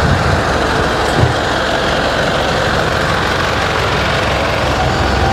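Scooter moving along at a steady pace: a steady rushing noise with an unsteady low rumble, wind and riding noise on the microphone.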